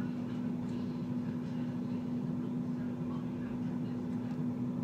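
Steady low machine hum at one constant pitch, with faint light taps now and then over it.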